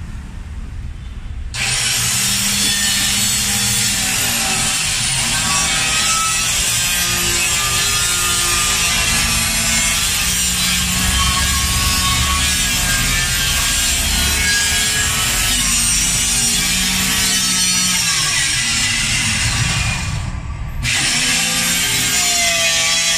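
Handheld electric circular saw cutting through a plywood sheet. It starts about a second and a half in and runs steadily under load, stops briefly near the end, then cuts again.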